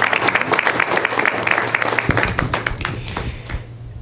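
Congregation applauding, the clapping thinning out and dying away over the last second or so.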